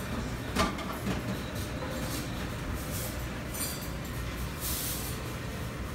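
Commercial kitchen background noise: a steady low rumble with scattered clinks and a sharp knock about half a second in, and brief hissy bursts now and then.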